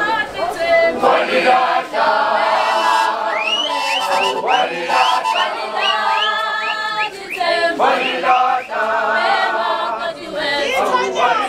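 A group of voices singing a cappella in a Zulu traditional song, with a run of short upward-swooping high calls through the middle.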